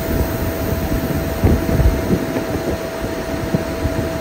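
Inside the cabin of an air-conditioned coach bus at highway speed: a steady rumble of engine and road noise with a constant whine over it.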